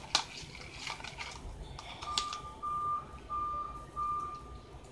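A few light clicks of a metal spoon against a plastic tub of slime in the first second, then a faint steady beeping tone coming in four short stretches.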